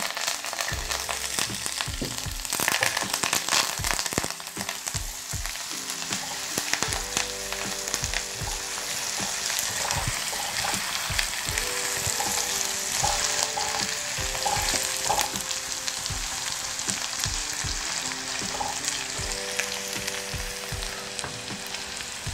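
Red onion, pandan and curry leaves and ginger-garlic paste frying in hot oil in a nonstick pot: a steady sizzle with crackles and spits, a spatula stirring now and then. This is the aromatics being fried until lightly browned before the chilli and spices go in.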